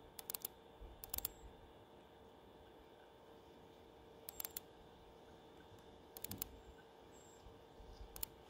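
Computer mouse double-clicking: about five quick pairs of quiet clicks spread out, opening one folder after another, over a faint steady hum.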